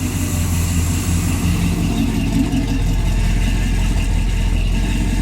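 1966 Chevy pickup's engine idling steadily.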